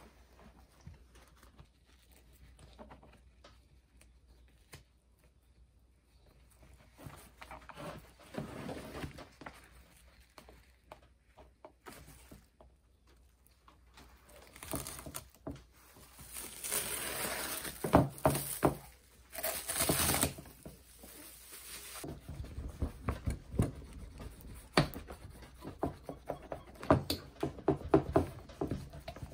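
Plastic masking sheet crinkling and rustling while upholstery fabric is handled and smoothed onto a glued door trim panel, loudest a little past halfway. Toward the end, a small hand roller presses the fabric down with a run of short knocks and rubs.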